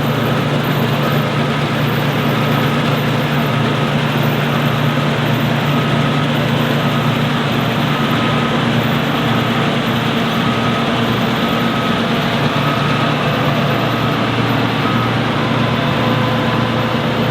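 Steady drone of a running John Deere combine harvester's engine and machinery heard from inside the cab, with a faint beeping tone that comes and goes.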